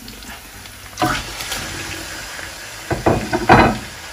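Raw bone-in mutton pieces dropped into hot oil with garlic, ginger and cumin in a metal karahi: sizzling starts suddenly about a second in, with two louder surges near the end as more pieces land in the oil.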